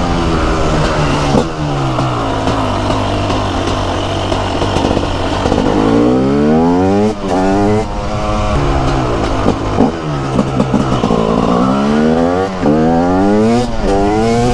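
TM SMR 300 single-cylinder two-stroke supermoto engine under way, its revs climbing hard and dropping off again several times as the bike is throttled up, shifted and backed off. The engine note falls slowly in the first few seconds, then rises and falls about four times.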